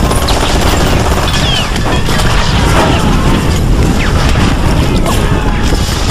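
Mountain bike descending rough, bumpy ground at speed: steady loud rattling, knocking and clattering of the bike and tyres over the ruts, with heavy rumble from wind buffeting the camera's microphone.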